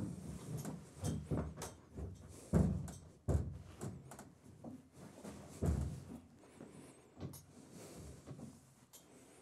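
Horse's hooves stepping and shifting on a horse trailer's loading ramp, giving a series of irregular dull thumps, three louder ones in the middle.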